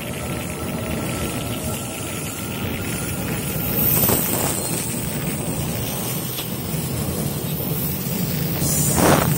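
Electric multiple-unit commuter train rolling slowly past along the platform: steady rolling and running noise, with two brief louder swells, about four seconds in and near the end.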